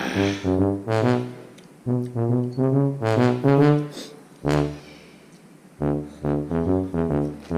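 Background music: a bouncy tune of short, detached brass-like notes over a bass line, pausing briefly twice. A short noisy rustle is heard right at the start.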